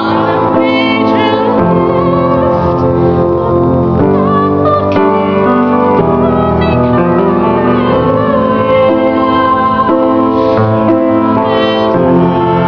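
Piano playing slow, held chords that change every second or two, with an acoustic guitar played along.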